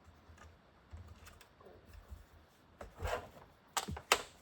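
Handling noises of tools and parts: a rubbing sound about three seconds in, then two sharp clicks near the end.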